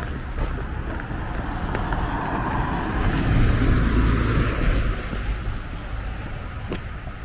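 A car driving past on a street, its tyre and engine noise swelling to its loudest about halfway through and then fading away.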